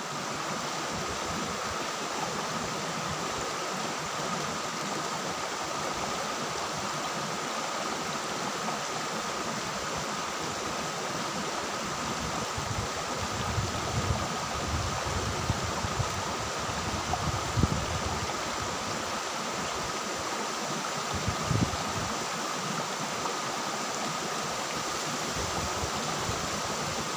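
Shallow river water rushing over rocks: a steady hiss of flowing water, with a few soft low knocks around the middle.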